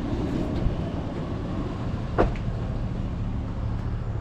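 Steady low rumble of a vehicle on the move, heard from inside the cab, with one sharp knock about two seconds in.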